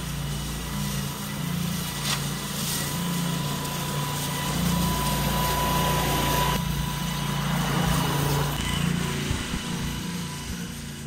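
AS Motor 901 walk-behind flail mower's engine running steadily under load as it cuts long grass, with a faint high whine that is strongest in the middle.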